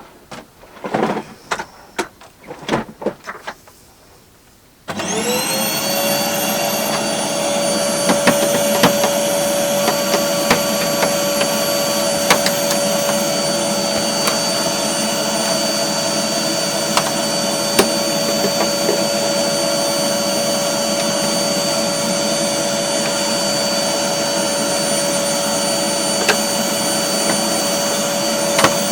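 A few knocks and rattles, then a vacuum cleaner switched on about five seconds in: its motor spins up quickly to a steady whine and runs on, with occasional small clicks.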